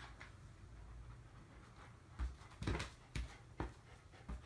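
A handful of short knocks and scuffs in the second half, about five in two seconds, as a large dog shifts its paws on a rubber inflatable balance disc, over a low steady room hum.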